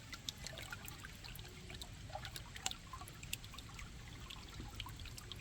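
Faint trickle of running water, with many small scattered drips and splashes over a low steady rumble.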